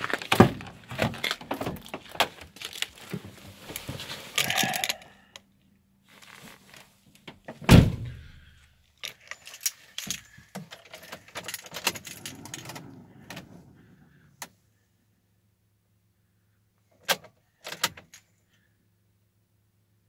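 Keys jangling and clicking while the frosted door of a Citroen Jumper van is opened and someone climbs into the cab. The door shuts with one heavy thump about eight seconds in, followed by rustling, and two sharp clicks come near the end.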